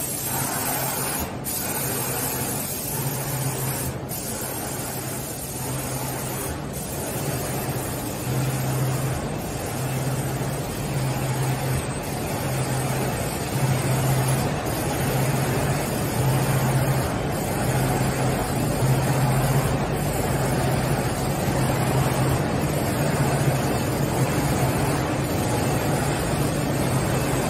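Steady mechanical noise of a running UV coating production line for fiber cement boards, with a low hum that swells and fades about once a second and a few sharp clicks in the first several seconds.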